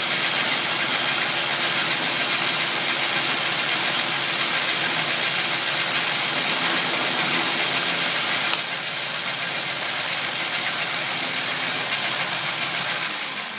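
Old Atlas metal lathe running with an end mill cutting a slot in steel strap iron: a steady, loud machining noise over a low motor hum, easing a little about eight seconds in.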